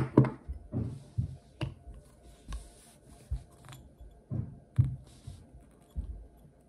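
Handling noise from a Daiwa BG 4000 spinning reel being turned over and moved close to the microphone: about a dozen irregular dull knocks and light clicks, roughly one or two a second.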